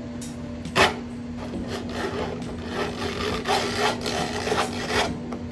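Homemade PET bottle stripper slicing a plastic bottle into a continuous strip as the strip is pulled through by hand: a dry rasping scrape that is stronger in the second half, with one sharp click about a second in. A steady low hum runs underneath.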